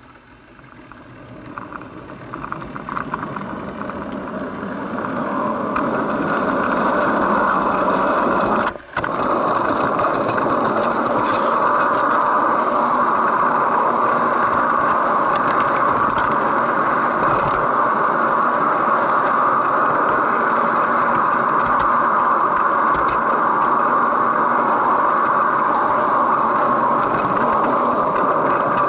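Model train running on the track, heard close up: a steady whir and rattle of motor and wheels on the rails. It grows louder over the first several seconds, breaks off for a moment about nine seconds in, then holds steady.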